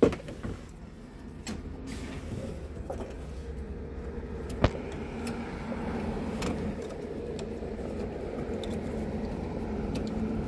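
A steady low motor hum that grows slowly louder, with a few sharp clicks, a loud one at the start and another about four and a half seconds in.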